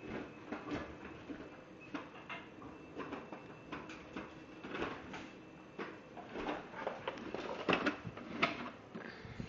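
A plastic push-along toy car knocking and rattling as a toddler pushes it across a hard floor: irregular clacks and bumps, the loudest near the end.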